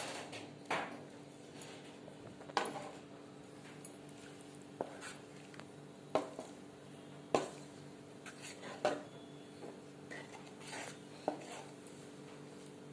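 A spoon stirring thick kurma in a kadai, with irregular knocks and scrapes against the pan every second or two over a faint steady hum.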